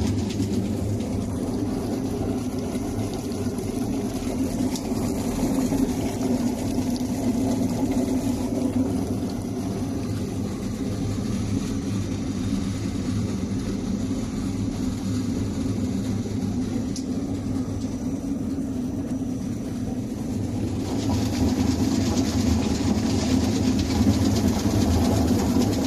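Sweet potato peeling machine running: a steady electric-motor drone with a low hum, as sweet potatoes tumble in its stainless-steel peeling chamber. A brighter hiss grows louder about four-fifths of the way through.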